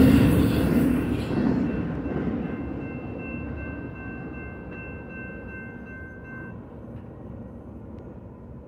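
The last cars of a double-stack intermodal freight train rumble past and fade steadily into the distance as the train pulls away. A faint, steady high ringing sounds for a few seconds in the middle.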